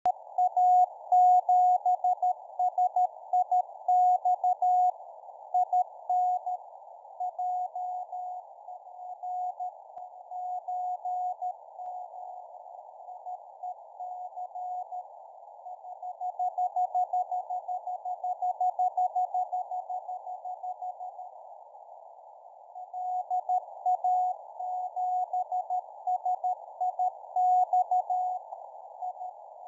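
Morse code from the LA7SIX 6 m beacon, a Norwegian polar beacon, heard as a keyed tone of about 750 Hz through a radio receiver's narrow CW filter, over steady hiss. The signal fades down twice, around a third of the way in and again about three quarters through, then comes back strong.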